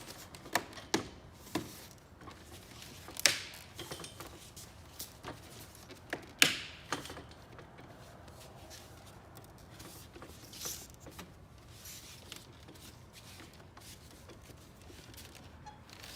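Plastic push-in clips on a Toyota Camry front bumper cover snapping into place as a part is pressed down. There is a handful of sharp clicks in the first seven seconds, the loudest about three and six and a half seconds in, followed by quieter rubbing and handling of plastic. The clicks are the sign that the clips have locked.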